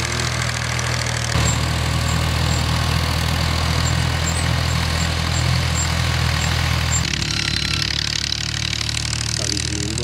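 Engine running steadily at low revs, a deep even hum. Its sound changes abruptly about a second in and again about seven seconds in.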